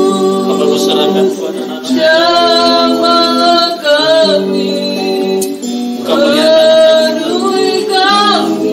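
Voices singing a slow worship song over guitar accompaniment, with long held notes.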